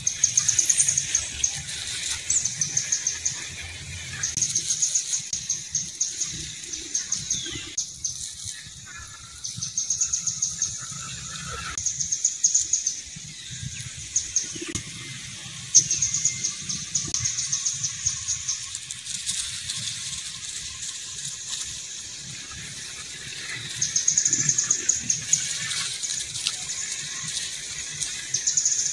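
A bird singing short, high, rapid trills over and over, a second or two apart, with a few longer pauses.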